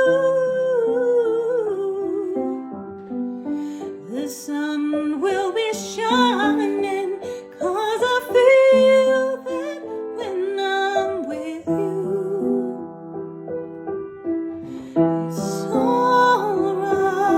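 A slow, gentle song sung by a woman over piano accompaniment, the voice gliding and wavering above sustained piano chords.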